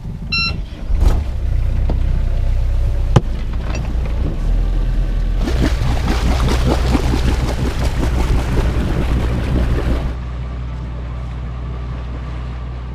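Sailboat's inboard engine started from its cockpit panel: a short beep, then the engine catches about a second in and runs with a steady low drone. From about five seconds water rushes loudly past the hull, then stops abruptly about ten seconds in while the engine drone goes on.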